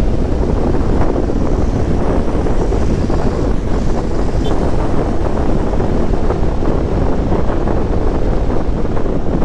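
Steady wind rush buffeting the camera microphone on a BMW G650 GS motorcycle riding at highway speed, with engine and road noise mixed in underneath.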